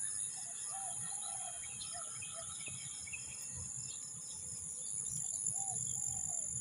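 Steady high-pitched chorus of insects, crickets by the sound of it, droning without a break, with a bird giving short calls now and then.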